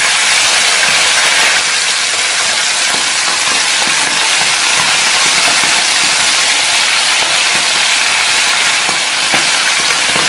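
Freshly washed salted fish frying in hot oil in a pan, giving a loud, steady sizzle as the water cooks off.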